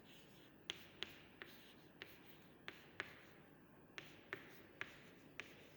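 Hand writing, faint: about ten light ticks and short strokes at uneven intervals.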